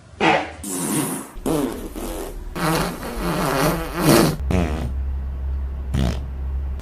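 A run of fart sounds: about five buzzy farts one after another, each bending up and down in pitch. About two-thirds of the way in they give way to one long, low, steady fart.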